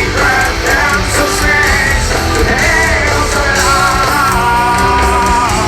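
Rock band playing live, with a male voice singing over the band and a long held note near the end.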